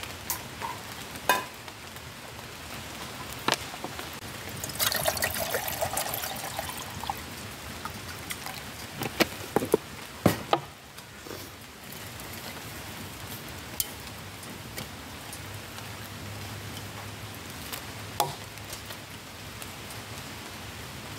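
Water poured into a metal camping pot for about two seconds, followed by several sharp metallic knocks as the pot is handled on the mesh table and set on the wood stove, over a steady hiss of rain.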